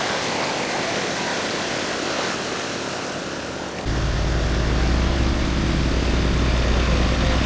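Motor vehicle running, with a steady hiss. About four seconds in, a strong, steady low rumble starts suddenly and holds.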